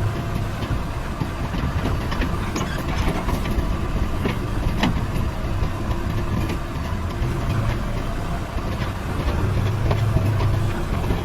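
JCB 3DX backhoe loader's diesel engine running steadily, its low drone swelling and easing a little. A few sharp knocks sound in the middle.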